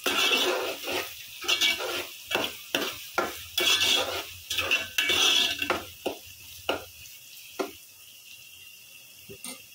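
Sliced onions frying and browning in oil in an aluminium pot, stirred with a spatula: a run of scraping strokes against the pot, a little under two a second, over a steady sizzle. The stirring stops about seven and a half seconds in, leaving a fainter sizzle.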